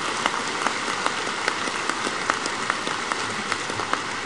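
Audience applauding steadily: a dense patter of many hands clapping, with a few sharper individual claps standing out.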